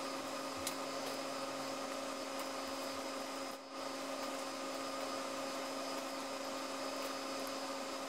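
Steady hum with hiss, holding a few fixed tones, with a few faint light clicks of small metal parts being handled.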